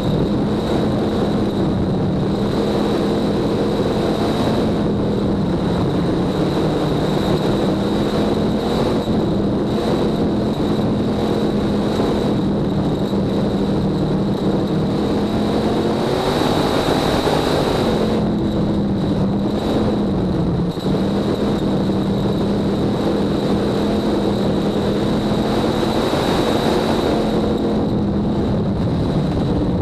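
Dirt-track race car's engine running hard at high revs, heard from inside the cockpit, its pitch dipping briefly a few times as the car slows for the turns. A thin steady high whine runs along with it.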